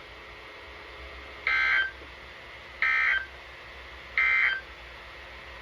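Emergency Alert System end-of-message: three short bursts of data tones, each under half a second and about a second and a half apart, sounding the code that closes an alert.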